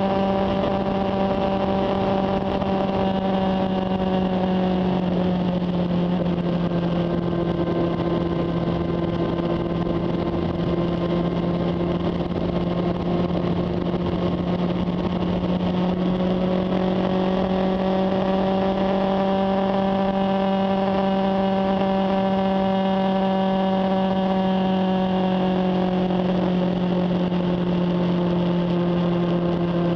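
Honda CB400 Super Bol d'Or's inline four-cylinder engine running steadily under way, its pitch easing slightly and then rising again about halfway through.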